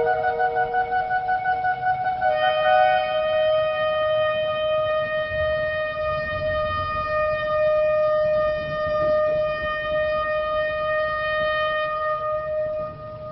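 Shofar sounding: short wavering notes for the first two seconds, then one long steady blast held for about ten seconds that fades out near the end.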